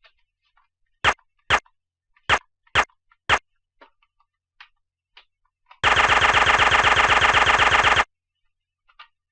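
Gunfire from a G36c-style rifle: five sharp single shots in quick succession, a pause with faint clicks, then a burst of rapid automatic fire lasting about two seconds.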